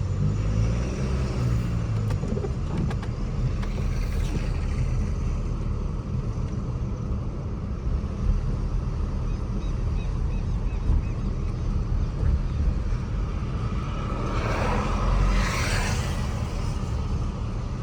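Chevrolet S10 pickup driving along, a steady low engine and road rumble. About fourteen seconds in, a hissing rush swells and fades over a couple of seconds.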